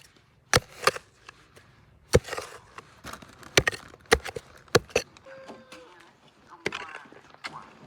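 Sharp blows of a tool striking wood, chopping or knocking, about eight strikes at uneven intervals, typical of cutting or driving stakes for a garden fence.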